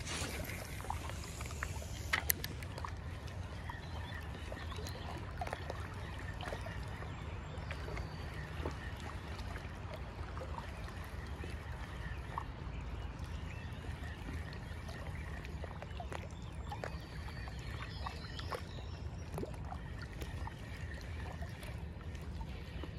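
Quiet river-bank ambience: a steady low rumble under a faint wash of water sound, with scattered faint ticks and a couple of sharper clicks about two seconds in.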